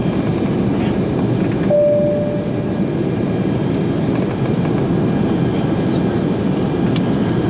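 Steady, even drone of an Airbus A340-600 airliner cabin. About two seconds in, a single short chime sounds and fades.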